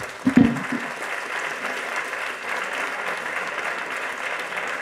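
An audience applauding: dense, steady clapping after a talk ends, with a brief low sound about half a second in.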